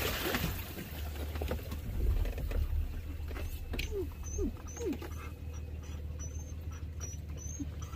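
A Nissan GQ Patrol's engine idling low while the 4x4 sits bogged in deep muddy water. Three short falling whines sound about four to five seconds in, and faint high chirps follow.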